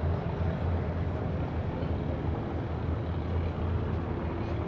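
Steady low engine drone, holding an even pitch throughout.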